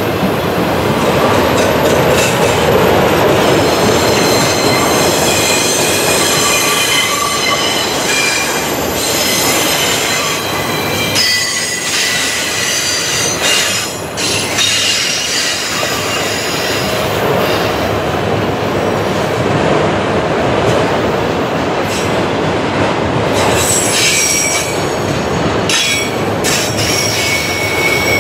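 Freight train of autorack cars rolling past: steel wheels running on the rails, with high-pitched wheel squeal from the cars rounding the curve, coming and going in several tones. A few sharp clanks sound around the middle and near the end.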